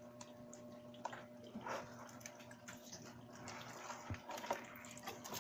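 Faint sloshing and dripping of water with scattered small clicks as live mud crabs are lifted by hand out of a plastic basin of water.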